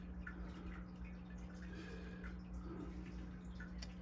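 Faint, scattered small clicks of a folding knife's small metal parts being handled and fitted during reassembly, over a steady low hum.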